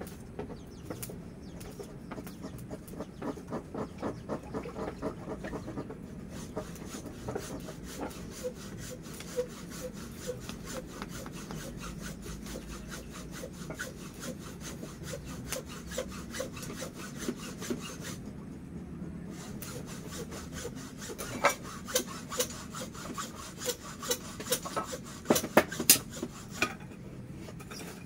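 Golok machete blade being sharpened: repeated rubbing strokes of steel against a sharpening surface, with a few sharper clicks in the later part.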